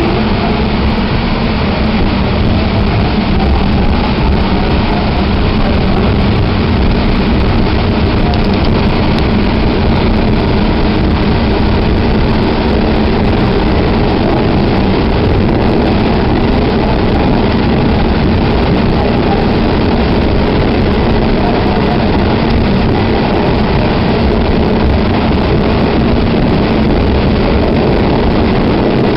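Staten Island Railway train running, heard from inside the passenger car: a steady rumble of wheels on rail with motor hum. A faint rising whine in the first few seconds as the train pulls away from the station and gathers speed.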